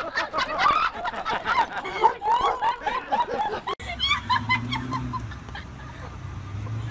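A chicken clucking, with a steady low hum under it in the second half. Before that there is a run of short, quick pitched calls.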